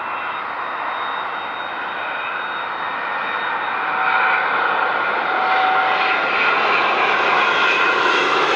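Boeing 787-9 Dreamliner's Rolls-Royce Trent 1000 turbofans on final approach with landing gear down: a steady jet roar with a thin whine, growing louder about four seconds in as the airliner comes low overhead.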